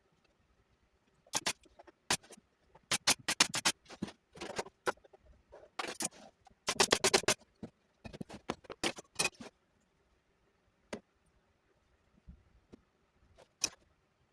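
Irregular runs of sharp clicks and knocks, bunched in the first two-thirds, then a couple of single knocks near the end.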